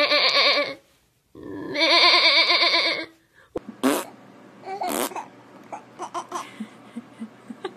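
Two long sheep-like bleats with a wavering pitch, the second starting about a second after the first ends. After that, a baby laughs and giggles in short, quieter bursts.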